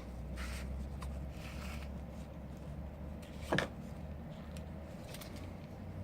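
Faint handling noises from small tools and phone parts during a smartphone screen repair: soft scrapes and one sharp click about three and a half seconds in, over a low steady hum.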